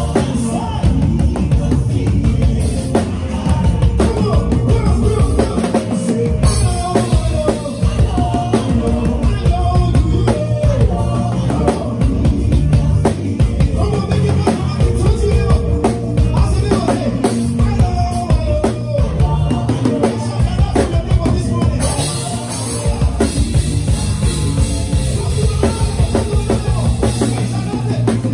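Live praise band playing an upbeat instrumental groove, with a drum kit driving a steady beat.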